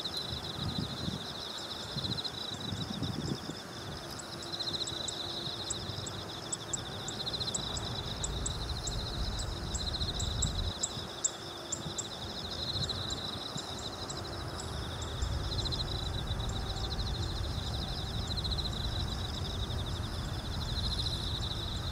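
Insects chirring in a steady, fast-pulsing high trill, with brief ticking calls above it for a few seconds. A low rumble underneath grows louder past the middle.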